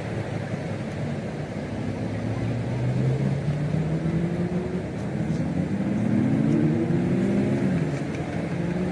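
A motor engine running, its pitch rising and falling over several seconds, over a steady wash of surf noise.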